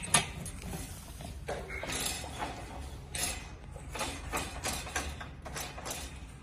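Irregular clicks and light knocks of hand-handled hardware on a pressure-mounted metal baby safety gate as its threaded adjuster knobs are tightened against the door frame, with one sharp click just after the start.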